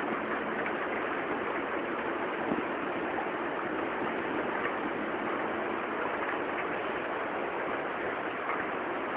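Heavy rain in a thunderstorm, falling steadily as a dense, even hiss with scattered faint drop ticks.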